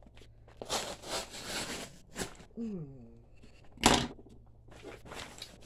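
Heavy brown paper bag being crinkled and torn open by hand, in irregular rustling bursts, with one sharper, louder rip about four seconds in.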